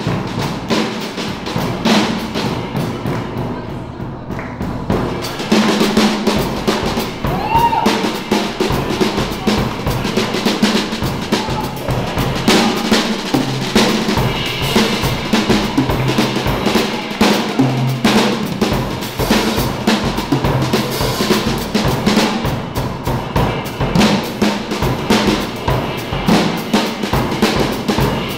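Acoustic drum kit played live: a busy, unbroken pattern of snare, tom and cymbal strokes over bass drum.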